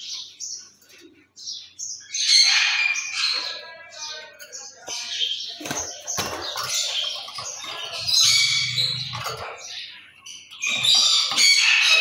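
Lovebird giving harsh squawks and chattering calls in repeated loud bursts, with a few wing flaps and knocks against the wire cage around the middle.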